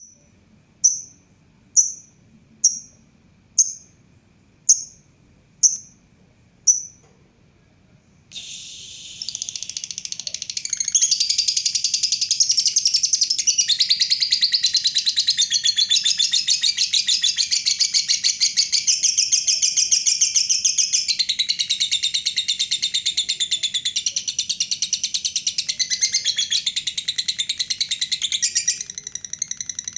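Lovebird giving seven sharp single chirps about a second apart, then, from about eight seconds in, breaking into a long unbroken run of fast, high chattering: the long 'ngekek' song.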